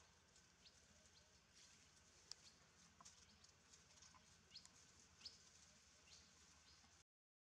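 Near silence: faint outdoor ambience with scattered short, high chirps and ticks, the sharpest a little over two seconds in. The sound cuts out to dead silence near the end.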